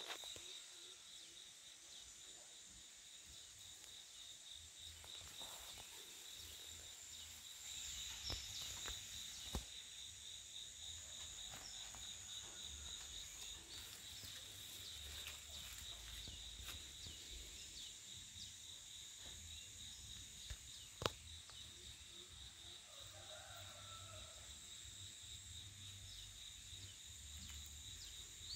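Faint, steady high-pitched trilling of insects in the vegetation, with a couple of sharp clicks about a third and three quarters of the way through.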